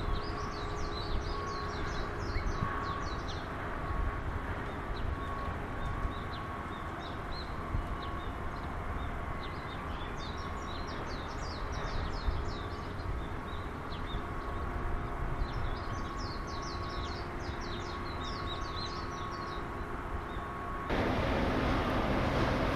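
Small birds twittering in three bursts of quick high chirps over a steady low outdoor rumble with a faint steady hum. About 21 s in, the background changes abruptly to a louder rushing noise.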